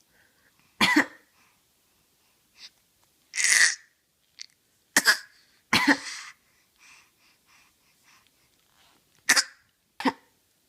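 Coughing: a person coughing and a pet copying the coughs with cough-like sounds of its own, about six sharp coughs spaced a second or more apart, with fainter short sounds in between.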